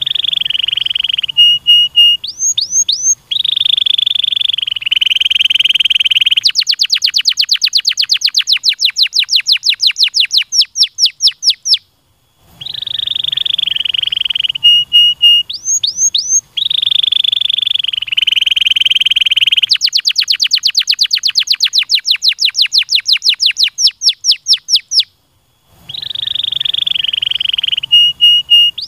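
Domestic canary singing long song phrases: a buzzy rolling trill, a few quick rising whistles, then a rapid run of sweeping notes at about six a second. The same phrase repeats every 13 seconds or so, with a second-long pause between repeats.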